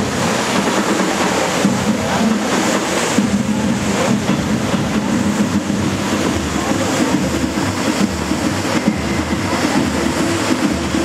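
Tall water jets of a large show fountain spraying and falling back into the water: a loud, steady rush of water noise without pauses, with voices of an audience mixed in.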